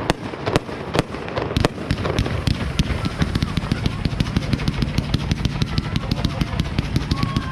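New Year's Eve fireworks: a few separate sharp bangs, then from about two seconds in a dense, rapid crackle of many small reports.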